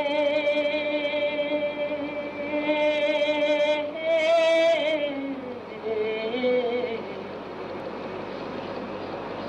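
Music: a slow melody of long held notes with vibrato, sung or played on a reed or wind instrument, with a brief lower phrase about six seconds in. It gives way to a steady rushing noise for the last few seconds.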